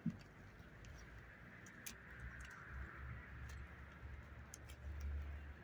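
Faint clicks and ticks of a steel hive tool prying a wooden frame loose in a beehive box, with a soft knock at the start and a low rumble that swells about five seconds in.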